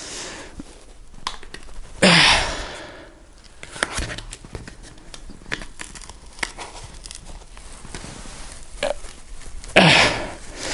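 The glued-in drop-in midsole of a Nike Kobe 7 being pried and peeled out of the shoe: scattered small creaks and ticks as the foam and glue give. Two loud strained breaths through gritted teeth, about two seconds in and near the end.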